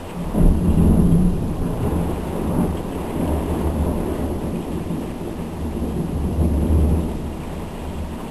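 Thunder rolling, with a sudden loud onset about half a second in and a deep rumble that goes on for several seconds, swelling again near the end. Rain falls steadily underneath.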